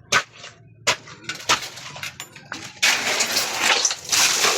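Sharp hard knocks, a few under a second apart, then from about three seconds in a dense rattling, scraping clatter, typical of hand work on building materials.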